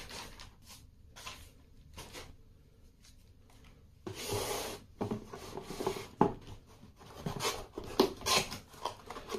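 Hands handling an air pistol and its plastic-wrapped cardboard box, making scattered rubbing and rustling sounds with light knocks. The loudest is a rub about four seconds in, followed by a quick run of short knocks and rubs.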